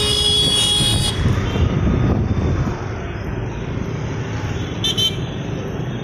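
Road traffic running steadily, with a vehicle horn sounding for about a second at the start and a couple of short horn beeps about five seconds in.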